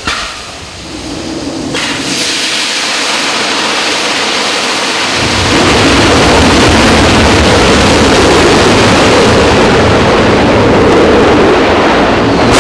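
RD-107A kerosene and liquid-oxygen rocket engine firing on a test stand: a rushing hiss builds over the first few seconds, then about five seconds in a deep rumble joins and the roar holds steady and loud.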